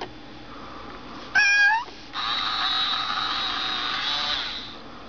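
Hasbro FurReal Friends Newborn Kitten toy giving a short electronic meow about a second and a half in, then a purring sound lasting about two and a half seconds.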